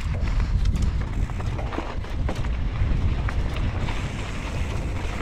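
Wind rumbling on the action camera's microphone as a downhill mountain bike rides fast over a rocky, loose trail, with tyres crunching over stones and scattered small clicks and knocks from the bike.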